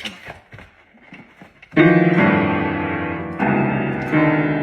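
A few faint clicks, then background piano music starts about two seconds in, with sustained chords changing every second or so.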